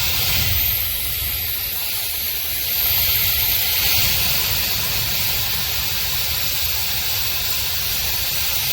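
Shark FlexStyle hair dryer running: a steady rush of blown air with a low motor hum, and a faint high whine in the first few seconds.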